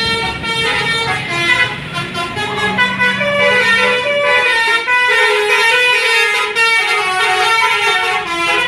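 A tour bus's Basuri 'telolet' musical horn playing a tune. It sounds a run of held notes, several tones at once, that change pitch every half second or so throughout.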